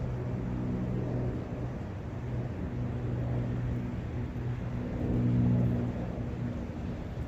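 Forest ambience of a running brook and wind, an even rushing hiss, with a low steady hum underneath that swells about five seconds in.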